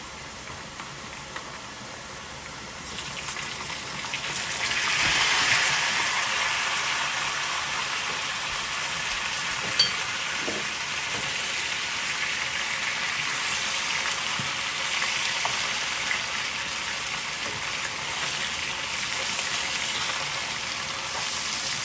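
Potatoes frying in hot oil in a pan, a steady sizzle that swells about four seconds in and then holds. A single sharp click about ten seconds in.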